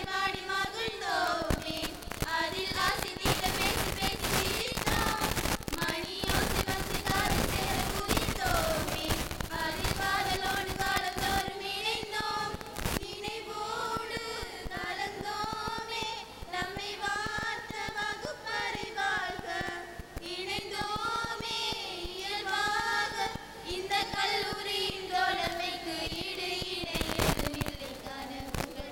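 A group of teenage girls singing a song together into microphones. Loud bursts of noise cut across the singing from about three to nine seconds in, and briefly again a few times later.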